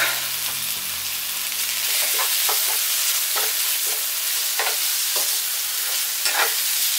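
Thin-sliced pork belly and chopped onion sizzling in a nonstick frying pan, stirred with a wooden spatula that scrapes and knocks against the pan several times from about two seconds in.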